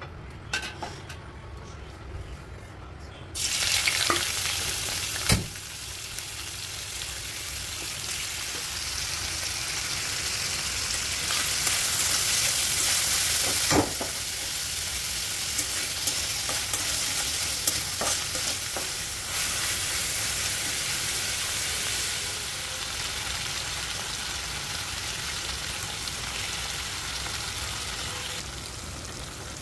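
Salted hilsa fish pieces going into hot oil in a wok: a sudden loud sizzle a few seconds in, then steady frying as they are stirred, with a couple of sharp knocks against the pan.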